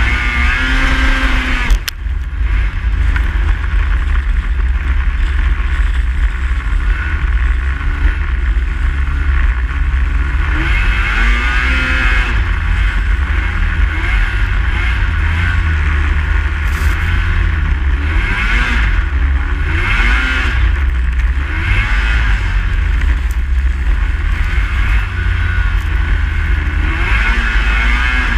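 Snowmobile engine running under way, its pitch rising and falling as the throttle changes, over a steady heavy low rumble. There is a brief drop in sound about two seconds in.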